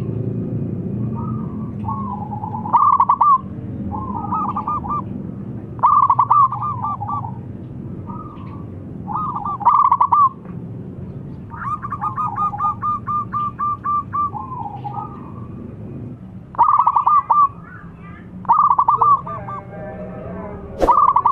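Zebra dove (perkutut) cooing: repeated bouts of quick staccato notes every two to three seconds, one of them a longer run of even, rapid notes about halfway through. A low background rumble sits under the first half, and a couple of sharp clicks come right at the end.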